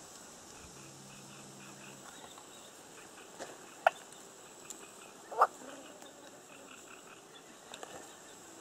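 Quiet outdoor ambience with a faint steady high hiss, broken by two short sharp sounds about four and five and a half seconds in, the second the louder.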